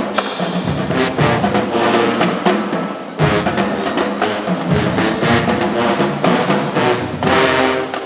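Marching band playing: brass section over a drumline, with sharp drum hits throughout. Near the end the full band holds a loud chord that cuts off, leaving only scattered drum hits.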